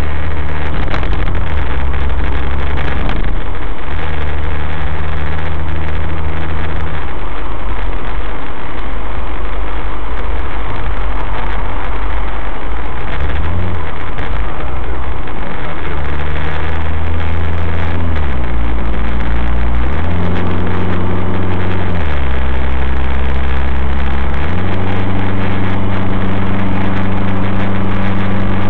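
Suzuki SX4's four-cylinder engine breathing through a K&N Apollo cold-air intake, heard from inside the cabin while cruising, over steady road and tyre noise. In the second half the engine note rises and drops several times.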